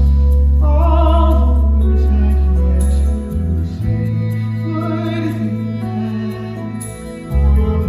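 A solo singer with vibrato sings a slow stage-musical ballad over instrumental accompaniment, with long held bass notes that change a few seconds in and again near the end.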